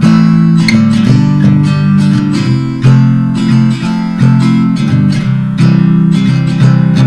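Background music: strummed acoustic guitar playing a steady rhythm of changing chords.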